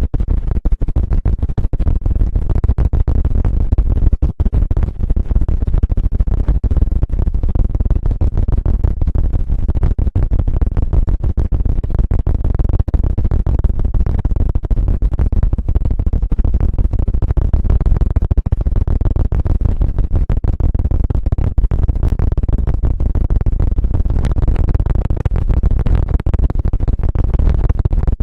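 Fast, unbroken scratching and tapping right against the microphone, heavy in the low end with a dense stream of quick clicks: an ASMR 'helicopter' ear trigger.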